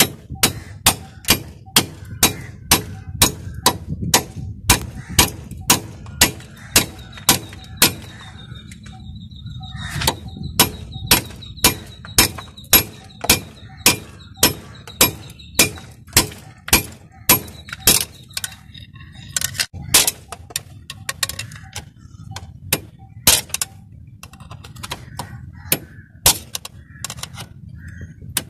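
Hammer blows on a long metal screwdriver driven into a cast-iron cylinder liner, splitting the old liner along a crack to free it from the diesel engine block. Sharp metallic strikes come about three a second, stop for a couple of seconds about eight seconds in, then resume, less regular in the last third. A low hum runs underneath.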